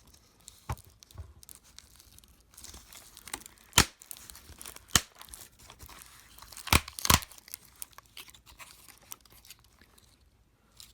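Sharp plastic snaps and clicks with scratchy crackling between them as the keyboard-retaining rivets in a MacBook Pro A1398 are pried at. About five distinct snaps, the loudest nearly four seconds in and a pair about seven seconds in.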